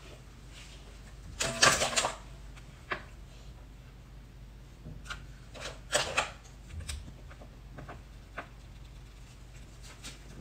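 Clear plastic cake mould crinkling and clicking as it is pulled off a tiered cream cake. A burst of rustling comes about one and a half seconds in, then scattered lighter clicks and rustles, over a faint steady low hum.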